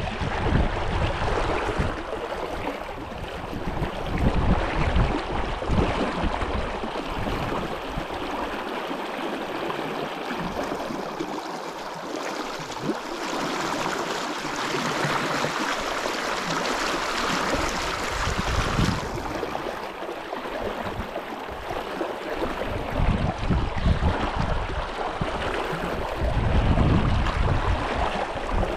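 Steady rush of a salmon brook's flowing water. It swells louder and hissier for several seconds midway, with irregular low rumbles near the start and toward the end.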